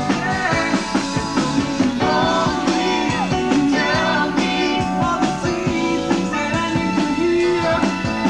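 Live pop-rock band performance: a male lead voice singing over electric guitar, bass and a steady drum beat.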